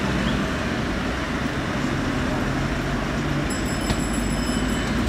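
Road traffic: cars driving past close by over a steady low engine hum. A faint high whine comes in briefly about three and a half seconds in.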